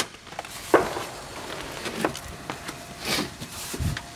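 Plastic dash and steering-column trim being pulled loose and handled: a sharp snap at the start, then scattered clicks and knocks, a brief rustle about three seconds in and a dull thump near the end.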